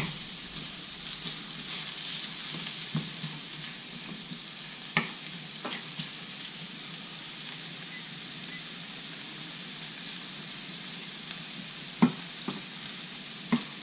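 Ham frying in olive oil in a hot paella pan: a steady sizzle, with a few sharp clicks around the middle and again near the end.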